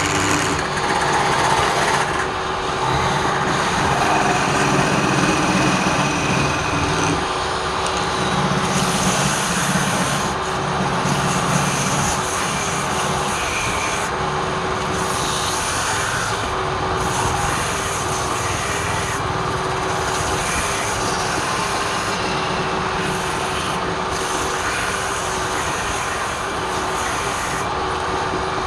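Wood lathe running, with a turning tool cutting into the spinning wood: a steady motor hum under a rough, hissing cutting noise that changes as the cut changes.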